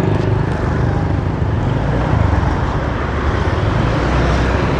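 Road traffic noise: a motor vehicle's engine running with a steady low drone under a constant hiss of road and wind noise.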